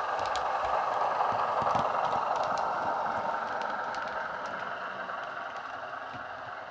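Model-railway DCC sound: a Loksound micro decoder playing a Class 105 diesel multiple unit's engine sound through a small speaker inside a passing Bachmann OO-gauge model, fading over the last few seconds as the model moves away. Scattered light clicks run through it.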